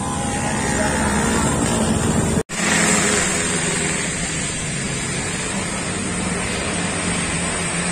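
A motor vehicle's engine growing louder on the road, broken off by a sudden brief dropout about two and a half seconds in; after it a steady droning hum continues.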